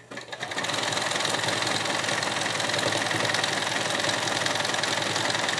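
Electric sewing machine running steadily, sewing a zigzag stitch through thick double-layer microfiber fabric. It starts up and reaches its running speed within about the first half second.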